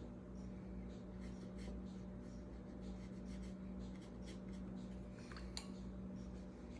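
Watercolor brush strokes brushing and scratching on paper, a few short strokes a second, with one sharper tick about five and a half seconds in, over a steady low hum.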